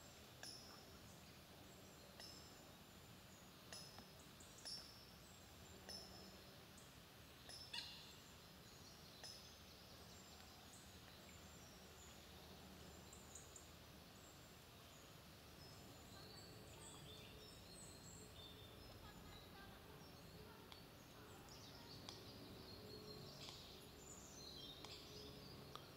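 Faint birds calling and twittering over quiet outdoor ambience: short high chirps every second or so early on, then denser twittering in the last third.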